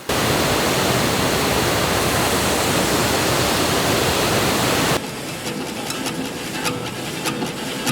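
Loud, steady rush of a waterfall, which cuts in suddenly. About five seconds in it cuts off just as suddenly to a quieter background with scattered clicks and faint tones.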